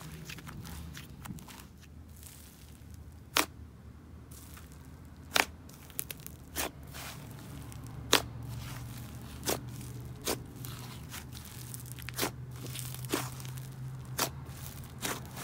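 Clay-heavy butter slime being stretched and pressed by hand, giving a fine sizzling crackle. About three seconds in, sharp pops begin at irregular intervals of a second or so, about ten in all.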